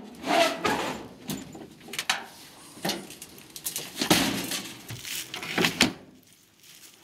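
Metal clothes dryer being lifted onto a pickup truck's tailgate and slid into the bed: a string of separate knocks, bangs and scrapes of sheet metal. A pickup tailgate is slammed shut near the end.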